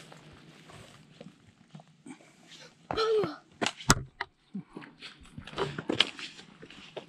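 Scattered scuffs and knocks of footsteps on a rocky hiking trail, with a short vocal sound falling in pitch about three seconds in and a sharp click just after it.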